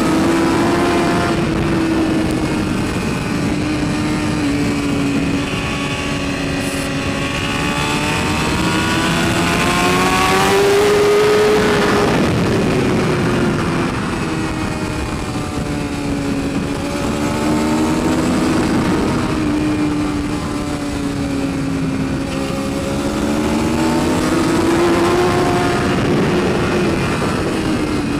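2012 BMW S1000RR's inline-four engine running hard on track, its note swelling up and falling back several times as the rider accelerates and rolls off for corners, highest about twelve seconds in. Heard from a helmet camera with rushing wind noise underneath.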